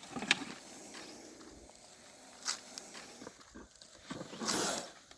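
Cobra hissing with its hood raised: one hiss of about half a second near the end, after a couple of short, sharp sounds.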